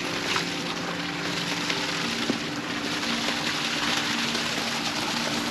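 A steady rushing outdoor noise, with several soft, held low notes of background music beneath it.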